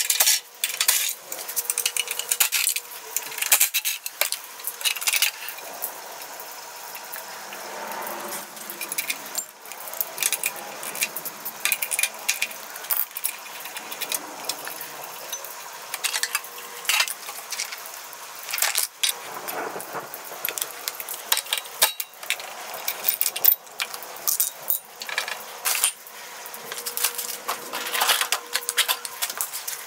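Metal tools and small parts clinking and clattering while bolts are loosened and parts removed on a small engine, with many scattered sharp clicks and knocks.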